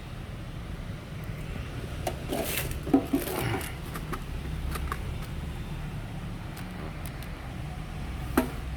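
Steady low hum with small clicks and light metallic rattles from handling small parts and tools: a cluster about two to four seconds in and one sharp click near the end.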